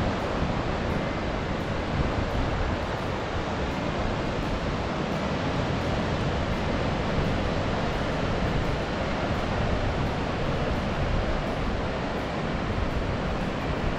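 Ocean surf breaking on a rocky shoreline, a steady roar of waves, with wind rumbling on the microphone.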